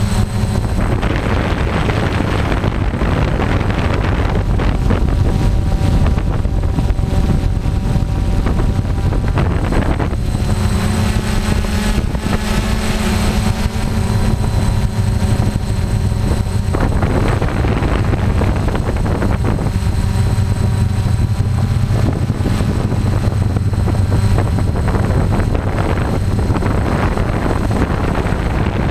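DJI F550 hexacopter's six electric motors and propellers whining in flight, heard from the camera on the airframe, with wind buffeting the microphone. The tone of the motors comes and goes and shifts in pitch as the throttle changes.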